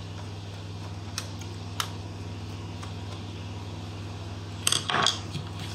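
Small clicks of a screwdriver and light handling taps as two screws are undone on an HP ProBook 440 G5 laptop, over a steady low electrical hum. A short cluster of clicks and clatter comes near the end.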